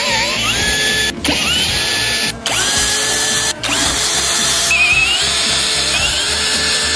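Power tool whining in short runs. Each run rises in pitch as the tool spins up, then holds steady. It cuts out briefly three times in the first few seconds, then runs on.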